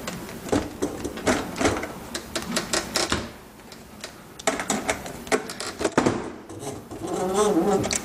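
A run of sharp clicks and light metallic rattles from screws and sheet-metal panels being worked loose on a dishwasher, with a short lull about three seconds in.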